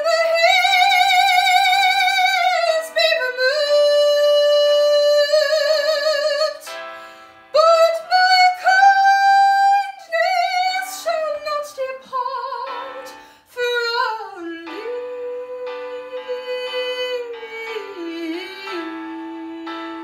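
Female classical singer singing long held notes with wide vibrato over a piano accompaniment. The phrase steps down to a low held note near the end.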